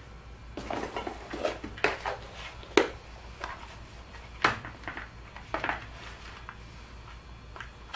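Clear plastic compartment box of heat-shrink tubing being handled on a workbench: a run of irregular plastic clicks, knocks and rattles, the sharpest about three and four and a half seconds in.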